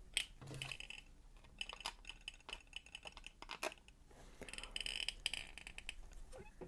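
Captains of Crush No. 2.5 torsion hand gripper squeaking and clicking in short bursts as it is squeezed, from friction between the coils of its spring.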